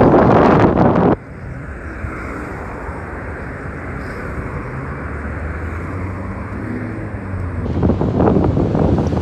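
Street traffic with a city transit bus's engine idling in a steady low hum. Wind buffets the microphone loudly for about the first second and again near the end.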